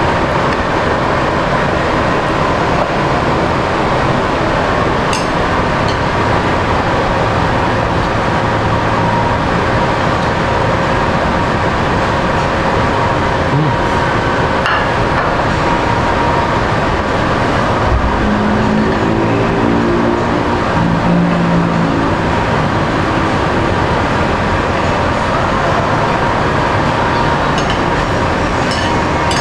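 Steady, loud background noise with a faint constant hum, like ventilation or traffic, with a few light clicks of metal chopsticks against dishes and a brief muffled voice about twenty seconds in.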